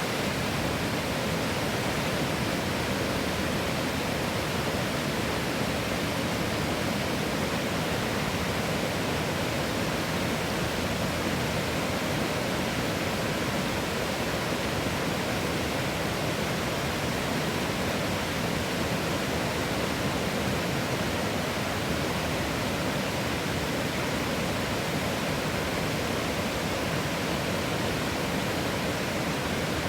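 River water rushing over rocks: a steady, unbroken roar of moving water.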